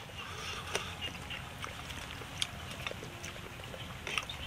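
A few light clinks of a metal ladle and chopsticks against the aluminium hot-pot and china bowls during a meal, over a low steady background.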